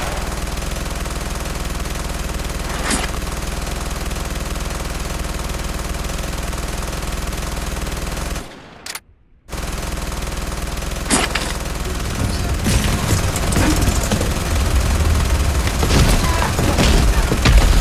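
Battle-scene sound effects of gunfire: a steady din of rifle and machine-gun fire with an occasional sharp single shot. The sound drops out almost completely for about a second around eight and a half seconds in. After that the firing grows denser, with low rumbling, toward the end.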